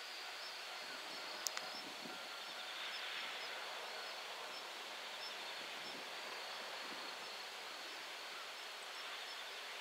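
Quiet outdoor ambience: a steady hiss with insects chirping in fast, even pulses, and a single sharp click about a second and a half in.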